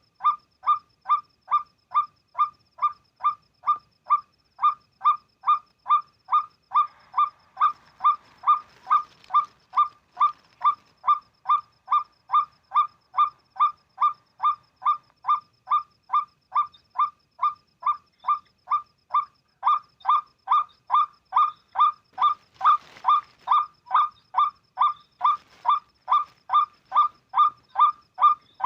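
White-breasted waterhen (ruak-ruak) call: the same hoarse honking note repeated very evenly, a little over two times a second, without a break.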